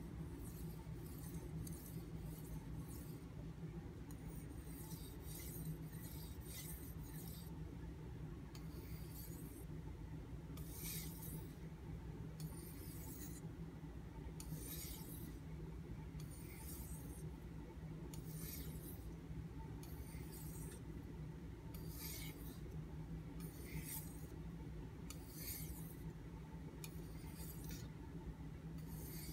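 Knife edge stroked back and forth on a Nubatama Ume whetstone: short, high, gritty scrapes about once a second, over a steady low hum.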